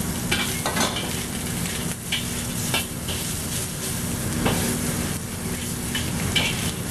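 Sliced beef sizzling and browning in a hot wok while a metal wok spatula stirs it, scraping and clinking against the wok at intervals over a steady frying hiss.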